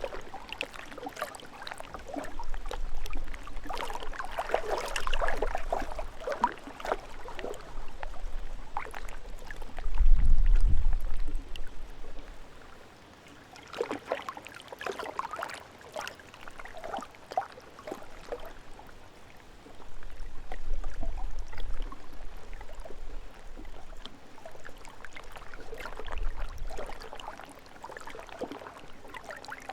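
Gentle lake waves lapping and splashing against a rocky shore in irregular sloshes, with a low rumble that swells now and then, strongest about ten seconds in.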